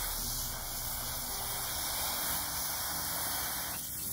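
Garden hose spray nozzle spraying a steady hiss of water onto a dog's wet tail fur. The hiss dips briefly near the end.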